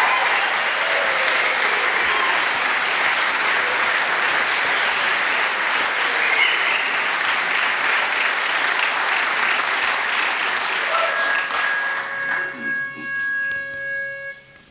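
Audience applauding, thinning out about eleven seconds in. Near the end a single steady note is held, with a few short hummed tones beneath it.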